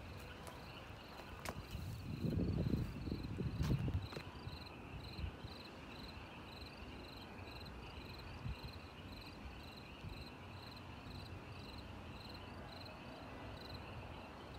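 Crickets chirping steadily, about two chirps a second, over a faint high hiss. About two seconds in, a low rumbling noise lasting a couple of seconds is the loudest sound.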